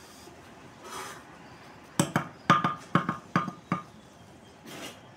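A trowel tapping a hollow clay brick six or seven times in quick succession, with a short ringing knock each time, bedding the brick into the mortar. Faint scrapes of mortar come just before and after.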